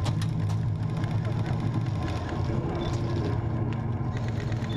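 A steady low mechanical hum, like a small motor running.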